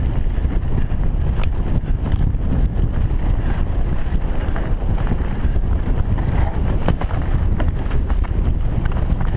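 Heavy wind rumble on the microphone of a mountain bike riding fast downhill, with scattered clicks and clatters from the bike and tyres over rough trail.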